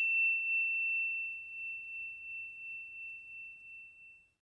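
A single high bell note ringing on and slowly fading away, dying out about four seconds in.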